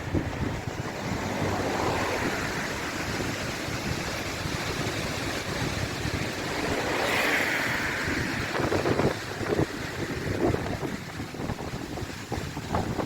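Steady rushing noise of a flooded river running high, with gusts of wind buffeting the microphone.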